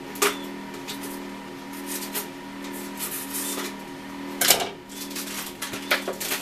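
Scissors snipping and plastic crinkling as the label wrapper is cut and pulled off a 2-liter plastic soda bottle, with a louder crackle of the plastic about four and a half seconds in. A steady low hum runs underneath.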